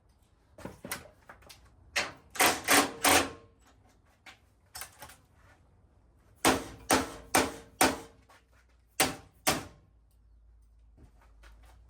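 Sharp knocks on a truck's sheet-metal body panel as it is worked into place, each with a brief metallic ring: four quick strikes about two seconds in, five more around seven seconds in, then two near nine seconds.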